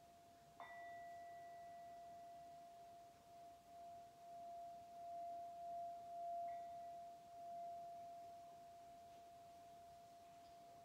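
Singing bowl struck once about half a second in, then ringing on at one steady pitch, its sound swelling and fading in slow pulses. A lighter second touch of the bowl comes about six and a half seconds in.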